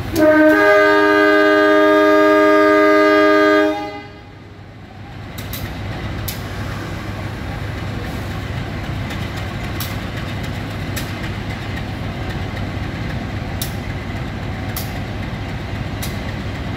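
Diesel locomotive's multi-tone air horn giving one long blast of about three and a half seconds, a departure signal, then cutting off sharply. Afterwards the locomotive's engine rumbles steadily, with a few sharp clicks.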